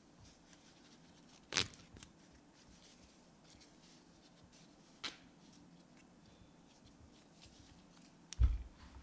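A watch band being worked into the lug slot of a titanium Apple Watch Ultra 2 case, a stiff first fit: two sharp clicks a few seconds apart among faint scraping ticks, then a low thump near the end.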